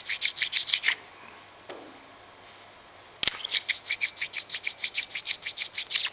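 A sharpening stone stroked rapidly back and forth over a step drill bit to stone off a burr, about seven short scraping strokes a second. The stroking pauses about a second in, a single click sounds a little after three seconds, and the stroking starts again and runs on until just before the end.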